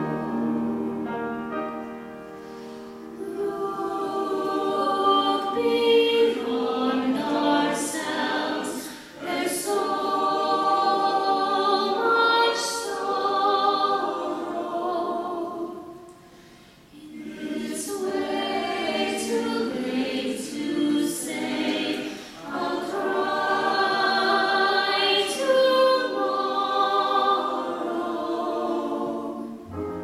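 Choir singing with orchestral accompaniment; the voices drop away briefly about halfway through, then come back in.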